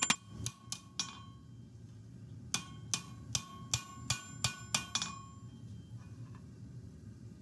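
Hand hammer blows on a red-hot blade on a cast steel anvil, each strike ringing with the anvil's clear tone. A few blows come first, then after a pause a run of about eight at roughly two and a half a second.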